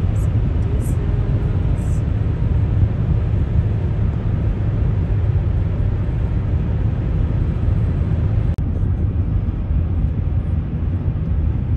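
Steady low road and engine rumble heard inside a car's cabin while driving at highway speed, with a brief dip about eight and a half seconds in.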